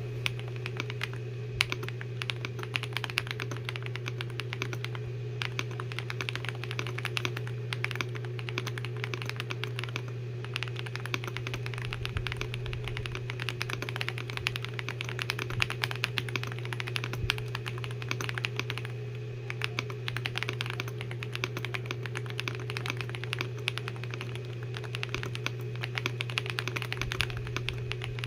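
Fast, continuous typing on an Ajazz AK820 mechanical keyboard with Akko V3 Cream Black Pro linear switches: a dense, irregular stream of keystroke clacks. A steady low hum runs underneath.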